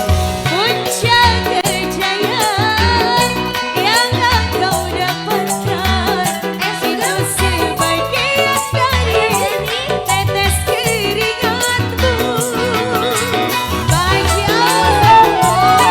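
Indonesian dangdut-style band music: kendang hand drums playing a busy pattern under an ornamented melody line that wavers and bends in pitch.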